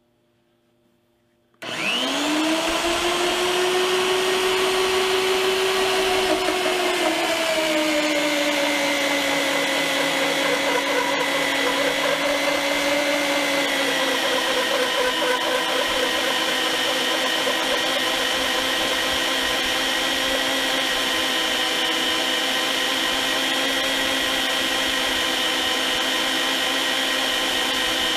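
Jancy magnetic drill's electric motor switching on about two seconds in and spinning up to a steady whine. Its pitch drops in steps as the annular cutter bites into the 3/16" steel tube, and it runs on under cutting load.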